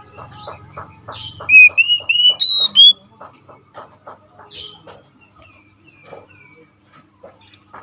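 Oriental magpie-robin (kacer) singing: a loud burst of clear whistled notes curving upward in pitch, starting about a second and a half in and lasting about a second and a half, with softer whistles later. Behind it runs a quick series of short clicking notes, about four a second.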